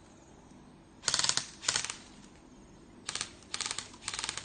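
Several short bursts of rapid airsoft BB gun fire, each a quick rattle of shots: two bursts about a second in, then three more close together near the end.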